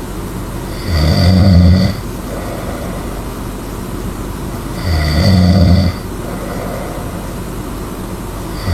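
A sleeping person snoring loudly: a rough buzzing snore about a second long, repeating roughly every four seconds, with a softer breathing sound between. Two full snores are heard, and a third begins at the very end.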